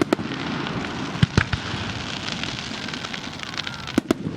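Fireworks going off: a few sharp bangs, one near the start, a pair about a second and a quarter in, and another pair near the end, over a steady fizzing crackle.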